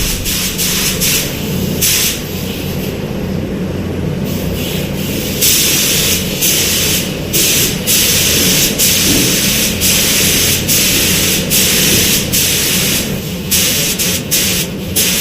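Paint spray gun hissing in on-off passes while laying a black mist coat over grey primer: short bursts at first, a long continuous pass in the middle, then short bursts again. A steady low hum runs underneath.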